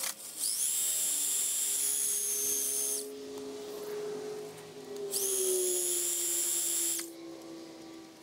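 Reciprocating saw cutting into a steel exhaust pipe near its elbow, in two bursts of about two and a half and two seconds with a pause between. The footage is sped up fourfold, so the saw comes through as a high-pitched whine.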